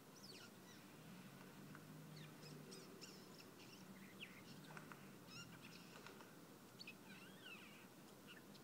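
Eurasian jay giving a faint, rambling run of short, varied chirps, clicks and gliding whistles.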